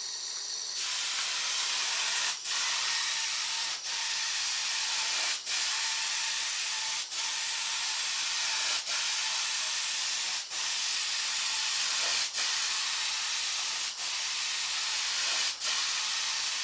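Paint spray gun spraying in a steady hiss of atomised paint, broken by short pauses about every one and a half seconds as the trigger is let off between passes. The gun had been clogged and is only just spraying through again, still leaving streaks.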